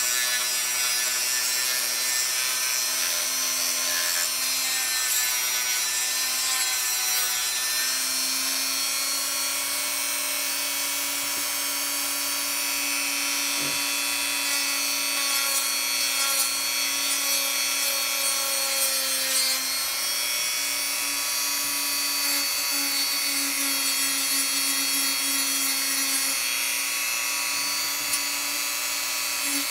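Hyper Tough 1.5-amp rotary tool running steadily while sanding: a continuous motor whine over the rasping hiss of the sanding accessory against the workpiece.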